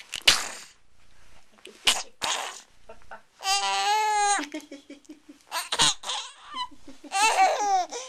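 Young baby laughing: short breathy gasps of laughter, then a long high-pitched squeal about three and a half seconds in and another wavering squeal near the end.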